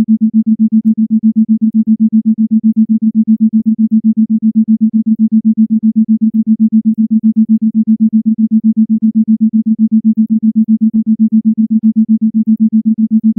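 Isochronic tone: a single low electronic tone, pitched around 220 Hz, pulsing on and off evenly several times a second.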